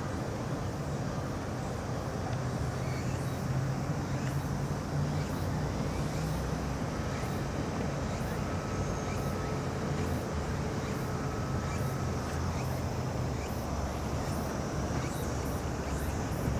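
Outdoor background noise: a steady low rumble under a faint hiss, with a couple of faint thin tones in the middle.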